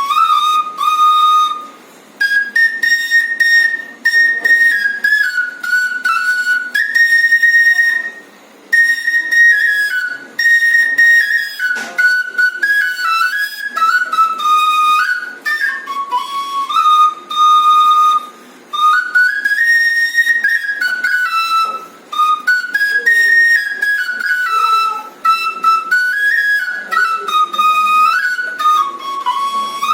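Bansuri (bamboo flute) playing a solo melody in the high register, in phrases that step up and down, with short pauses for breath between them.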